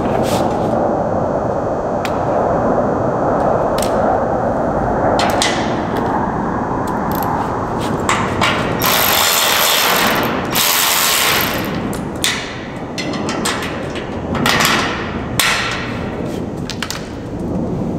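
Metal hardware being fitted by hand: clicks, knocks and ratchet-like rattles as bolts and nuts go onto a steel mounting bracket on the table leg, over a steady background noise.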